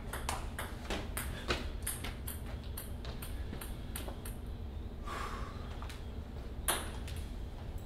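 Ping pong rally: the ball clicking off paddles and table back and forth, about four hits a second, for roughly four seconds before the point ends. One more sharp click a little before the end.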